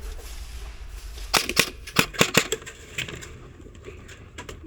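A quick, irregular run of sharp clicks and knocks, about eight in just over a second, starting about a second and a third in, over a low steady background rumble.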